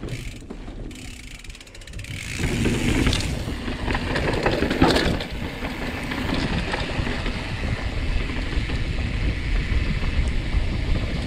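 Specialized Status mountain bike descending fast: the rear freehub ticks at first, then from about two seconds in there is a steady rumble and rattle of tyres rolling over slab rock and the bike shaking, with wind buffeting the microphone.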